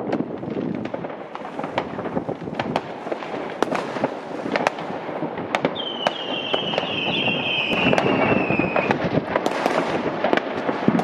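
Widespread fireworks going off across a city: a continuous mix of near and distant bangs and crackling from rockets and firecrackers. About six seconds in, one firework gives a long falling whistle lasting some three seconds.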